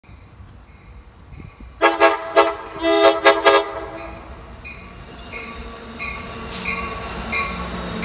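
Amtrak Surfliner cab car's multi-note air horn sounded in a quick string of about six short blasts, starting about two seconds in. Then the train rolls past, its rumble building, while a bell rings steadily about every half second.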